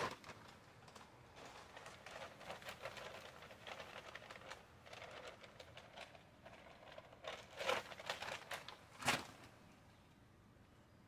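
Sand pouring from a plastic bag onto concrete pavers: a faint, irregular patter of grains with the bag crinkling. Two louder bumps near the end, the second as the bag is set down.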